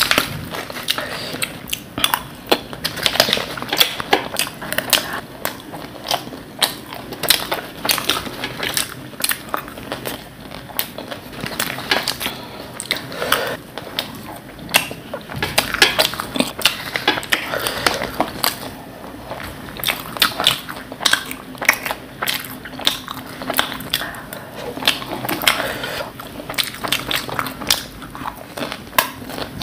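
Crunching and chewing of crisp bhelpuri with broken fuchka shells: many sharp crackling bites one after another, with occasional light clinks of a spoon on the plate.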